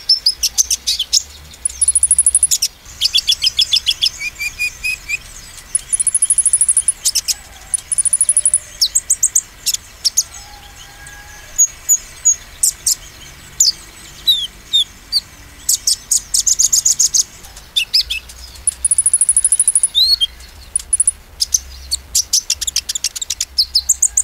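Kolibri ninja (konin) sunbird singing in rapid-fire "nembak" bursts: quick runs of very high, sharp chirps and short trills every second or two, with a few short sliding notes between them. It is the fast song that keepers play to provoke rival konin.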